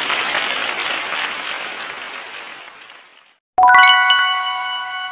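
Quiz sound effects: a noisy burst of hiss that fades away over about three seconds, marking the correct answer. About three and a half seconds in, a bright bell-like chime of several tones rings out.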